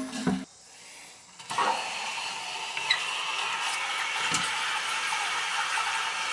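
Water running steadily into a toilet tank, a constant hiss that starts about a second and a half in, as the tank refills after the tank-to-bowl bolts were replaced.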